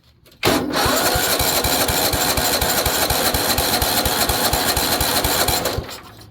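Tecumseh OHV130 single-cylinder engine being cranked by its electric starter, an even fast chugging under the starter's whir, starting about half a second in and stopping near the end without the engine firing: it has no spark.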